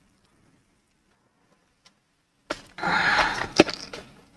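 Packaging being handled: a light tap about two and a half seconds in, then about a second of rustling with a sharp knock in it.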